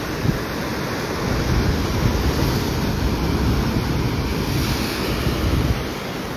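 Ocean waves surging and breaking against a sandstone rock shelf in a continuous wash, with wind buffeting the microphone. The surf eases a little near the end.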